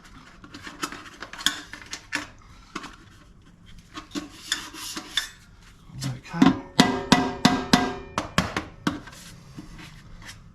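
Light aluminium HQ Holden wheel trim being worked onto the wheel: scraping and rubbing with scattered clicks, then a quick run of sharp knocks that ring like thin metal, about six to nine seconds in.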